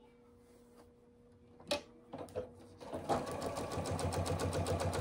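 Electric domestic sewing machine stitching a seam through layered cotton. It starts about three seconds in with a fast, even run of needle strokes that grows louder as it gets up to speed. A single sharp click comes a little before it.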